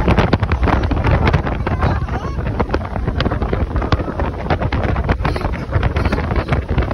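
Heavy wind buffeting a phone microphone aboard a moving open motorboat, in loud, gusty rumbles over the rush of the boat running across the water.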